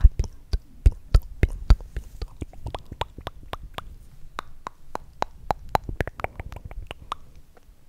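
ASMR mouth sounds: a rapid, irregular series of wet mouth clicks and smacks, several a second, thinning out near the end.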